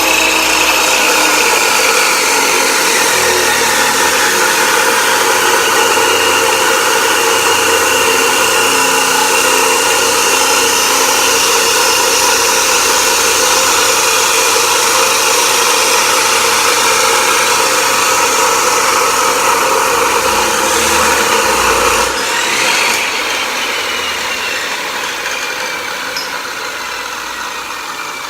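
Power tool running continuously under load on steel roll-cage tubing, a loud whine that wavers slowly in pitch. Near the end the pitch briefly rises, then the sound gradually drops in level.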